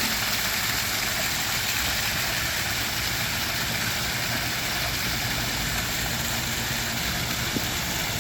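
Pondless waterfall running: water spilling steadily down over the rocks.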